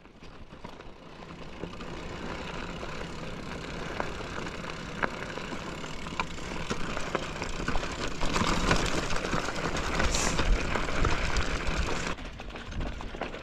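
Mountain bike riding on a dirt trail: a steady rush of wind on the microphone and tyres rolling over dirt, growing louder as speed builds, with scattered sharp clicks and knocks from rocks and the bike rattling.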